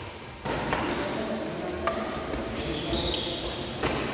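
Badminton rackets striking the shuttlecock during a rally: a few sharp hits a second or two apart, over background voices.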